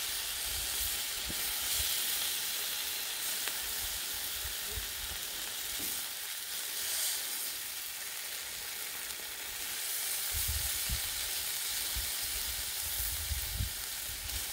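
Tri-tip steaks sizzling steadily on a hot Blackstone steel griddle, the fat and juices frying against the flat-top.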